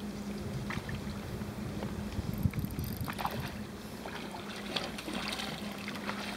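Steady wind and sea water washing against a rocky shoreline, with a few faint scattered clicks and knocks.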